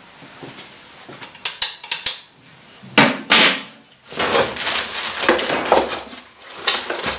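Hard metal objects being handled and set down: a few light clicks, two sharp clanks about three seconds in, then a run of irregular clinking and clattering.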